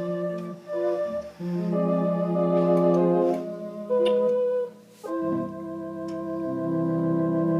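Organ playing a tune with held chords under a melody, the chords changing every second or few, with a brief break about four and a half seconds in.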